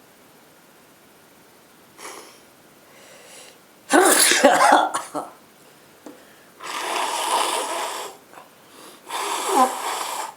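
A person with a head cold sneezes loudly about four seconds in, after a faint breath. This is followed by two long blows of the nose into a handkerchief.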